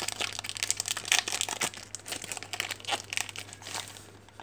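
Foil wrapper of a trading card pack crinkling and tearing as it is opened by hand, a dense run of irregular crackles that thins out near the end.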